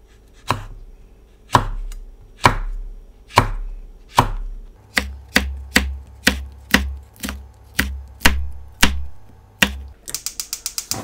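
Knife chopping a red cheongyang chili on a wooden end-grain cutting board. The single crisp strikes come about a second apart at first, then quicken to about two a second. A rapid run of clicks follows near the end.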